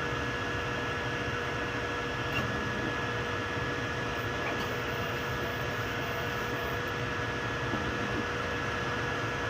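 3D printers running mid-print: a steady whir of cooling fans with a steady mid hum and higher whine, and a faint tick or two.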